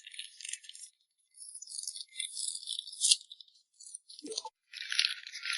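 Packaging being handled: crinkling and rustling in several bursts with short pauses, a sharp click about three seconds in and a brief duller knock a little after four seconds.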